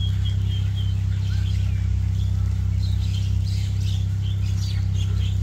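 A boat engine running with a steady low drone, under many short, high chirping calls from a large flock of birds.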